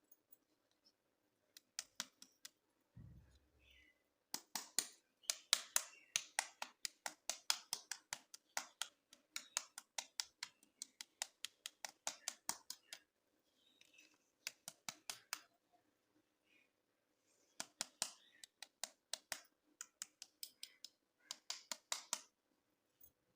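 Hands handling toy packaging: long runs of quick, sharp clicks and taps, about three or four a second, with a low thud about three seconds in.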